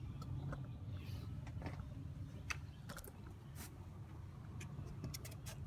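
Hand tools working on a car door's inner frame while bolts are loosened: scattered light clicks and taps at irregular moments over a low steady hum.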